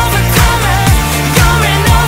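Upbeat pop music with a steady drum beat, about two beats a second, under a bass line and a gliding lead melody.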